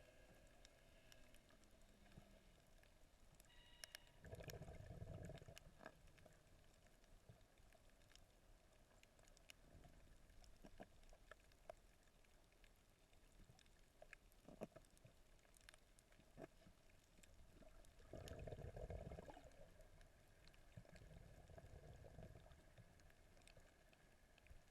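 Faint underwater ambience: muffled water movement that swells up three times, with scattered faint sharp clicks.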